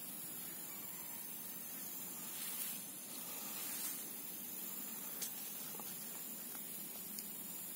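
Steady hiss of background noise, with two soft brief swells in the middle and a couple of faint ticks later on.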